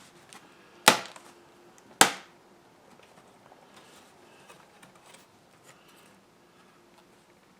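Two sharp plastic snaps about a second apart, then faint light clicking: a laptop keyboard's retaining clips popping loose as it is pried out.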